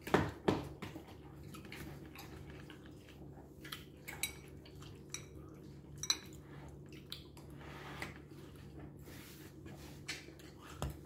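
Metal fork clinking and scraping against a glass bowl while stirring and scooping food, in scattered short clicks, the loudest just after the start and just before the end.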